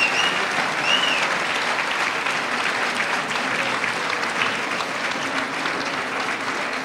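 Theatre audience applauding, a dense steady clatter of many hands, with two short high whistles that rise and fall in pitch in the first second.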